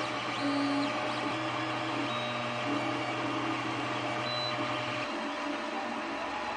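Creality Ender 3 Pro FDM 3D printer running: its stepper motors whine in shifting pitches, ramping up and down as the print head moves, over a steady low hum that drops out about five seconds in.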